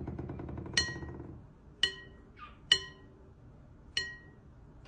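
A small glass object tapped four times, each tap ringing briefly with a bright, bell-like tone.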